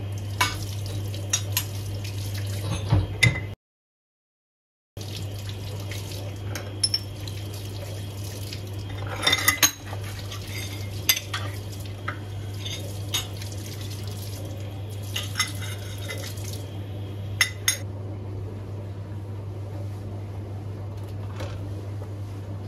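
Kitchen tap running into a sink while metal gas-stove burner caps are rinsed and scrubbed, with scattered clinks and knocks as they are handled against the basin, over a steady low hum. The sound drops out completely for about a second and a half a few seconds in.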